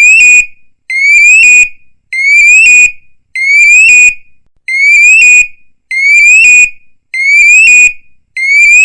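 Electronic police siren sound effect in short repeating bursts, about one every second and a quarter: each burst is two quick rising sweeps followed by a brief held tone that cuts off sharply, then a short gap.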